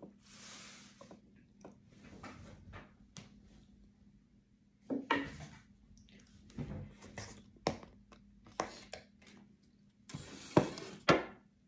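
Crab legs and shells being handled and cracked while eating: scattered short clicks, cracks and rustling, with the loudest burst and a sharp crack near the end.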